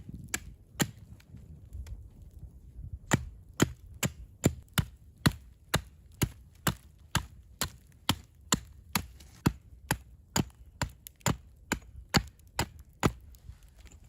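Repeated sharp chopping strokes, a couple at first and then a steady run of about two a second from about three seconds in, stopping near the end.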